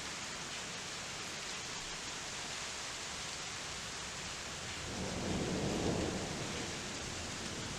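Steady hiss of rain during a thunderstorm, with a rumble of thunder swelling about five seconds in and dying away within a couple of seconds.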